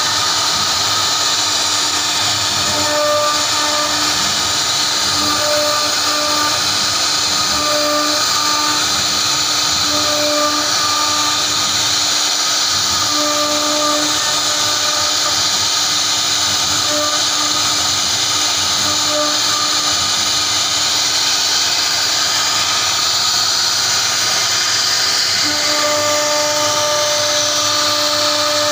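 CNC router spindle running, its bit carving relief patterns into a wooden panel: a loud, steady hiss with a pitched hum that cuts in and out, then holds steady near the end.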